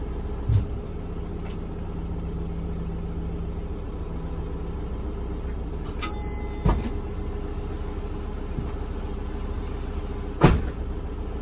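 The diesel engine of a DMV93 dual-mode rail/road vehicle running steadily, with a few sharp clunks: one near the start, one a little past the middle, and the loudest near the end.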